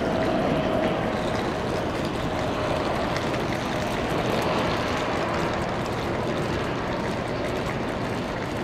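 Boeing 787-9 Dreamliner's GEnx-1B jet engines during the landing rollout: a steady, loud rush with a faint whine running through it.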